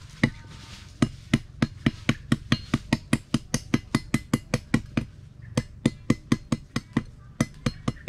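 A machete blade striking the end of a thin bamboo stick in quick, light chops, about five a second with two short pauses, cutting a notch into the bamboo.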